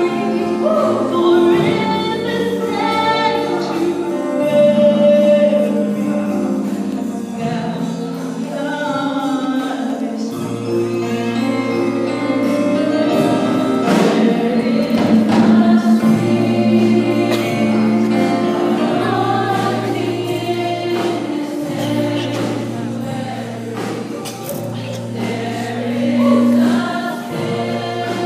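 Choir singing gospel music.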